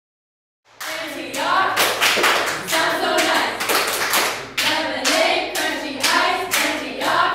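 A group of teenage girls singing a chant together while clapping in rhythm, about two claps a second, starting just under a second in.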